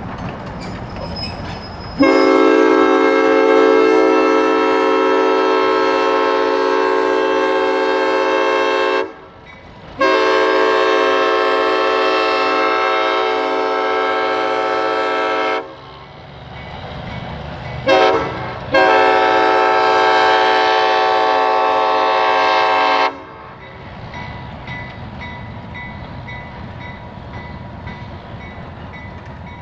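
Centercab diesel locomotive's air horn sounding the grade-crossing signal: two long blasts, a short one and a final long one. The locomotive runs with a steady rumble before and after the horn.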